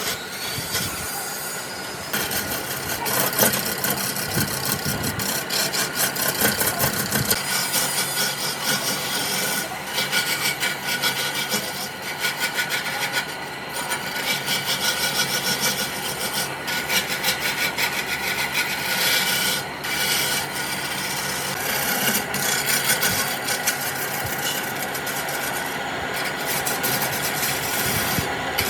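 Continuous rough scraping and rubbing of an abrasive on wood, with a few brief pauses.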